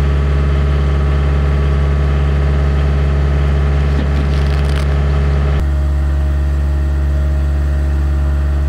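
An engine running steadily at constant speed, a deep even hum; its tone shifts slightly about five and a half seconds in.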